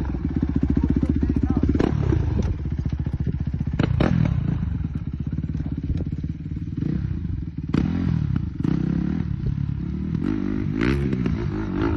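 Single-cylinder four-stroke trail motorcycle engine running under way, its revs rising and falling, with scattered sharp knocks and clatter over the engine.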